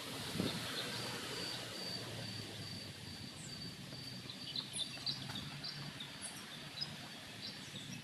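Birds chirping in garden trees: scattered short high chirps that grow more frequent in the second half, over a steady outdoor hum and hiss. A thin, high, pulsing note runs through the first half.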